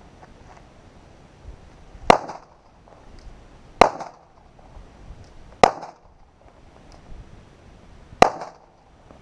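Four shots from a Glock 42 .380 ACP subcompact pistol, fired one at a time about two seconds apart, each a sharp crack with a short ring after it.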